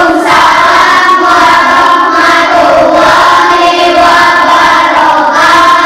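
A group of children's voices singing together in unison, with long held notes and no break.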